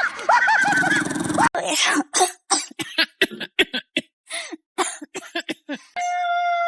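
Homemade vocal sound effects made with a person's mouth: a few squeaky gliding squeals, then a quick irregular run of about twenty short, rough bursts, then from about six seconds in one steady high held note.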